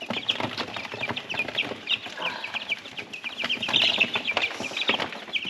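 A brood of baby layer chicks peeping, many short high cheeps overlapping without pause, with scattered light taps among them.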